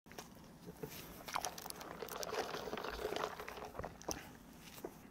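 A person chewing a mouthful of toast, with crunching and wet mouth clicks.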